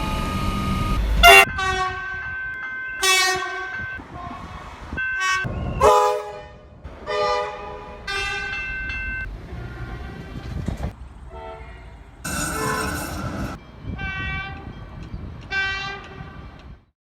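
Melbourne train horns sounding in a string of short and longer blasts, about ten in all, from several different horns one after another, over the low rumble of the trains. The sound cuts off abruptly near the end.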